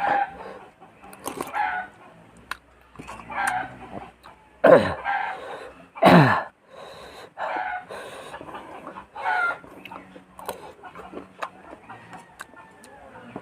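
Chickens clucking and calling over and over, with two loud calls about five and six seconds in that drop steeply in pitch.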